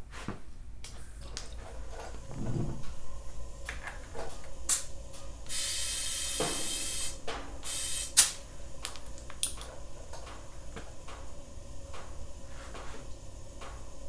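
A burst of hissing about a second and a half long, from the pressurised pump-up sprayer used to force oil into the engine, among scattered clicks and knocks as the sprayer, hose and gauge are handled.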